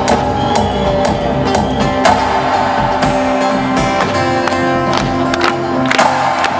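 Live band music: plucked strings ringing over held notes, with a drum hit about twice a second.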